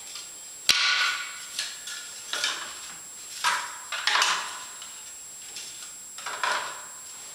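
Small plastic bins being set one by one into a steel tool-cabinet drawer: a string of short plastic clacks and rattles at irregular intervals.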